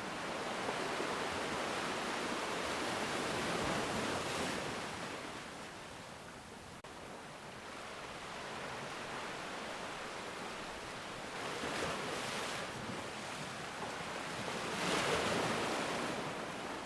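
Sea waves washing in and out in slow swells of surf, loudest in the first few seconds and again about fifteen seconds in.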